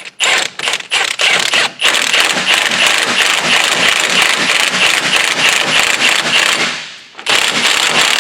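Impact wrench with a 35 mm socket hammering the front axle nut down onto a new wheel hub. A few short trigger bursts come first, then a long rapid hammering run of about five seconds, a brief stop, and another run near the end.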